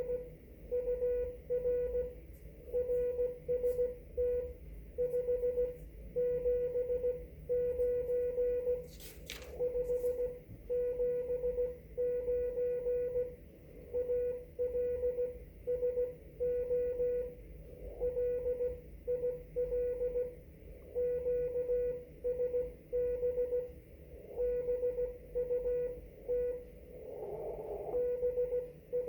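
Morse code on a ham radio transceiver: a steady mid-pitched tone keyed on and off in dots and dashes, over a low hum and hiss. A sharp click comes about nine seconds in, and a brief rush of noise near the end.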